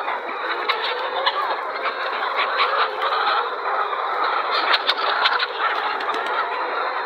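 A large flock of poultry calling all at once: a dense, steady din of many birds, with many short sharp calls standing out above it.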